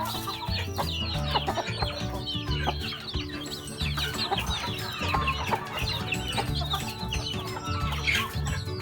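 Chickens clucking, with many short, rapid high calls over one another, as from hens with a brood of chicks.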